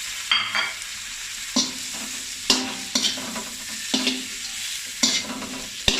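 Fried chicken pieces sizzling in melted butter with garlic and chili as they are stir-fried, a spatula knocking and scraping against the metal pan about once a second, each knock ringing briefly.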